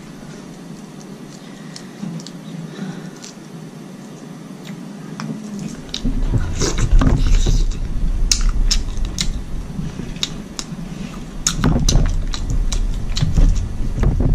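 Close-miked eating sounds: shrimp in sauce being peeled by hand and chewed. The first few seconds are quieter. From about six seconds in come louder wet smacks and sharp clicks of chewing.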